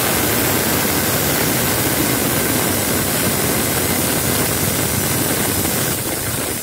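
Prestige Supreme pressure cooker whistling: steam hissing out loudly and steadily past the whistle weight, a sign that the cooker has come up to full pressure.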